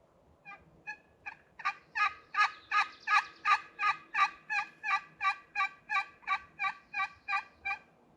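Turkey box call run as a long series of hen yelps: about twenty evenly spaced notes at nearly three a second, starting soft, building to loud and easing off a little near the end. It is calling to gobblers.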